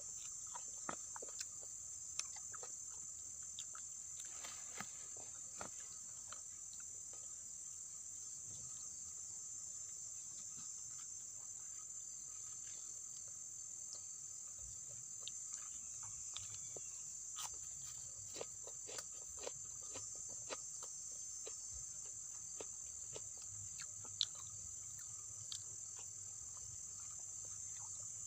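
Steady, high-pitched insect chorus of crickets or cicadas, with many scattered small clicks and taps over it.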